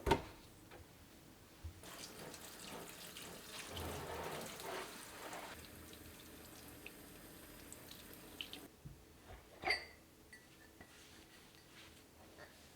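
Water running from a tap for several seconds, then shut off abruptly. A sharp knock follows, and another is heard at the very start.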